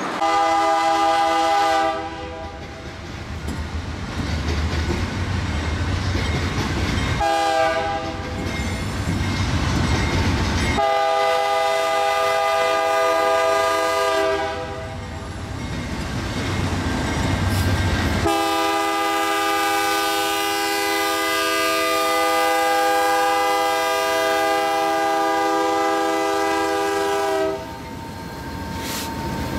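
Freight locomotive's air horn sounding a chord of several notes in four blasts: about two seconds at the start, a short one, one of about three seconds, then one held for about nine seconds. Between the blasts the low rumble of the diesel locomotives passing close by, with wheels clicking over rail joints near the end.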